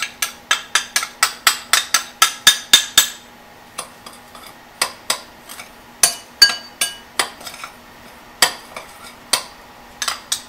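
Metal spoon clinking against a glass mixing bowl while stirring dry sugar, flour and cornstarch: quick clinks, about four a second for the first three seconds, then slower, scattered clinks.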